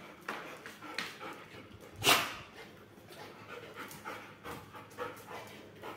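A small dog panting in quick, rhythmic breaths, with one short, loud noisy burst about two seconds in.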